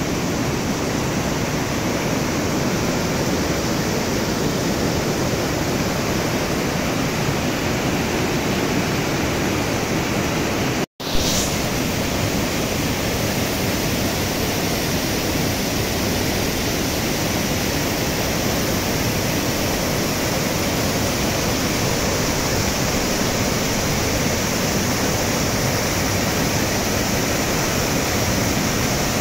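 Mountain stream rushing and splashing over rocks in small cascades, a steady even roar of water. It drops out for an instant about eleven seconds in, with a short click as it returns.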